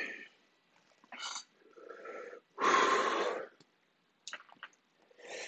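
A man breathing hard, with several noisy breaths in and out through the mouth; the longest and loudest comes about three seconds in. He is breathing through the burn of a superhot Dorset Naga chili pepper.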